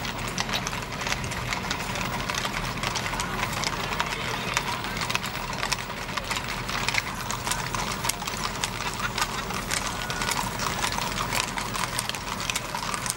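Hooves of many horses clip-clopping on a paved street at a walk, the clops overlapping irregularly, over a steady low hum.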